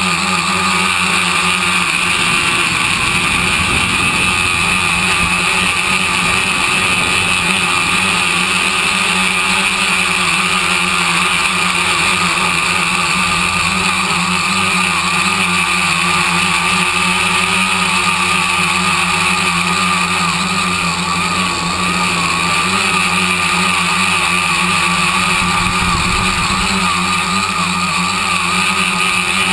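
Electric motors and propellers of a tricopter whining steadily in flight, heard from on board, with wind rumble.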